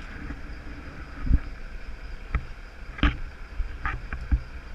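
Small fishing boat on the water: a steady low rumble of wind and water with a few dull knocks scattered through.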